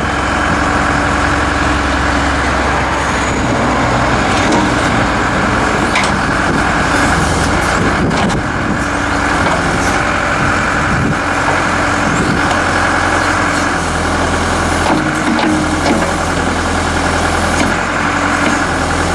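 A John Deere 310SG backhoe's four-cylinder turbo diesel running steadily, with a few short knocks along the way.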